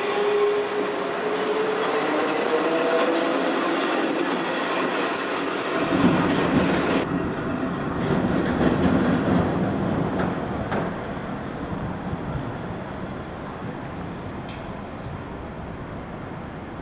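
Hiroshima streetcar running on street track. Its motor whine rises in pitch over the first few seconds, then comes the rumble and rattle of its wheels on the rails, which slowly fades toward the end.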